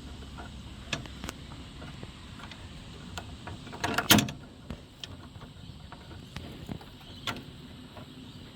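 Clicks and knocks of a caravan's outdoor-kitchen fittings being worked into line to lock in place, with a louder clatter about four seconds in.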